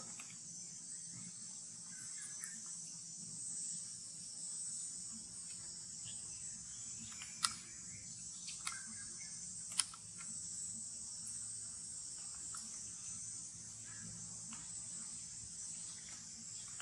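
Insects calling outdoors in a steady, high-pitched drone, with a few sharp clicks about halfway through.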